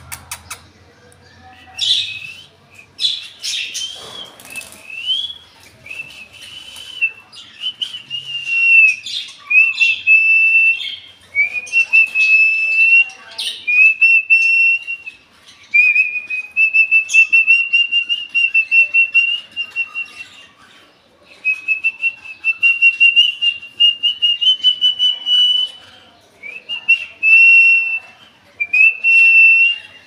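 Caged parakeets calling: a few seconds of varied chirps and squawks, then long trilled whistling phrases of a few seconds each, repeated with short breaks.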